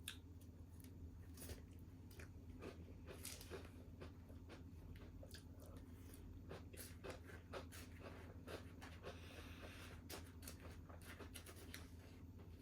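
Faint eating sounds: irregular small clicks and crunches of chewing, over a low steady hum.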